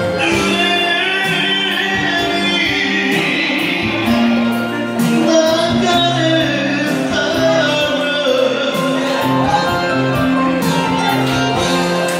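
A man singing a 1970s Japanese rock ballad live into a handheld microphone over a recorded backing track, amplified through PA speakers.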